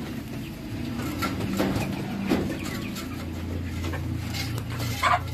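Poultry clucking softly now and then over a low steady hum, with one brief louder call near the end.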